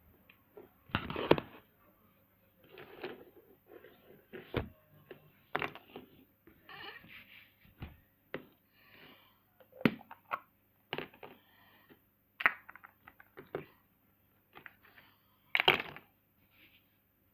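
Irregular knocks, clicks and rustling of objects being handled, with two louder knocks about a second in and near the end.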